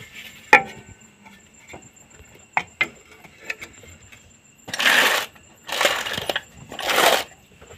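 A sharp metal clink and a few lighter clicks, then three short scraping rushes about a second apart as the moped's silencer is worked back into place on the exhaust pipe.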